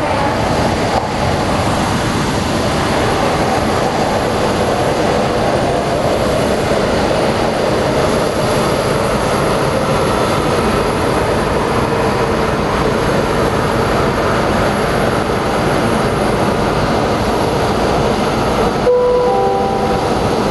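Boeing 737-800's CFM56-7B jet engines running as the airliner decelerates on its landing roll, a steady loud jet rumble and rush. Near the end, a short descending chime from the airport's public-address system sounds over it.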